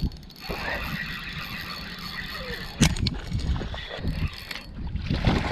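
Spinning reel being cranked as a hooked bass is reeled in, with a single sharp knock about halfway through.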